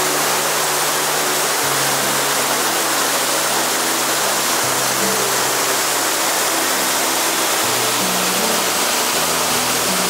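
Steady rush of water from Yoro Falls, a continuous even hiss, under slow background music of held low chords that change about every three seconds.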